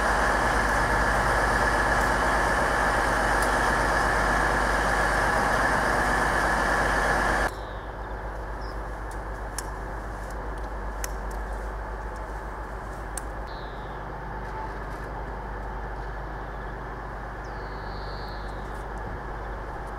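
Diesel trains idling at a station, a steady engine rumble that drops suddenly to a quieter background about seven seconds in. Faint clicks and a few brief chirps follow.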